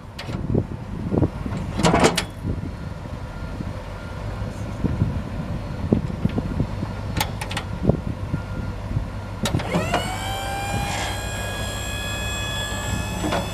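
Pickup truck's 5.8L V8 idling, with several sharp clicks and knocks. About nine and a half seconds in, a motor spins up with a quickly rising whine that settles into a steady high whine.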